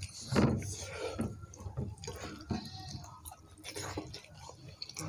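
Eating by hand: wet chewing and mouth sounds, with fingers squishing and mixing soft khichuri on a ceramic plate, heard as a scatter of small irregular clicks.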